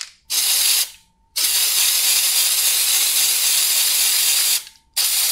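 Aerosol spray-paint can hissing in three bursts: a short spray, a long one of about three seconds, then another short one near the end.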